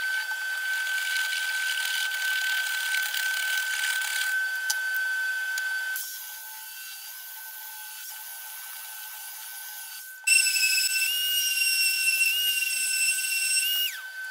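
Woodworking tool sounds in turn: a hand saw rasping through a pine and resin strip, then a handheld belt sander running with a loud, steady high whine from about ten seconds in.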